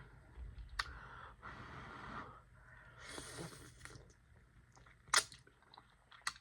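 Sticky, sauced chicken wings being handled and pulled apart by hand: soft squishing and scraping with scattered sharp clicks, the loudest about five seconds in.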